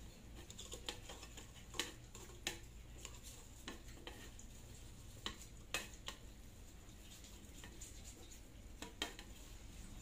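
A thin metal rod poking and scraping inside a mini melting furnace's chamber, prying out ceramic fiber insulation: faint irregular scrapes broken by a handful of sharper metallic taps and clicks.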